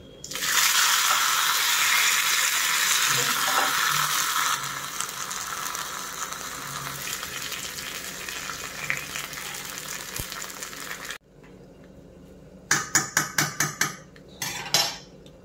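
Curry leaves added to hot oil and popped mustard seeds in a small iron tempering pan, sizzling and spluttering loudly at first and slowly dying down before stopping abruptly about eleven seconds in. Near the end, a quick run of about eight sharp metal clinks and knocks, then a few more.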